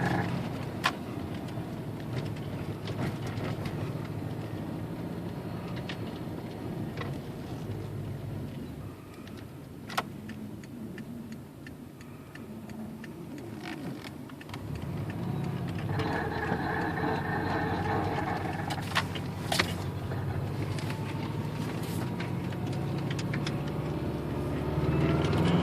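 Subaru Legacy GT being driven, engine running, with a rubbing, grinding noise that comes only when turning and accelerating. About 16 s in, a rougher grinding band rises for a few seconds, and near the end the engine revs up.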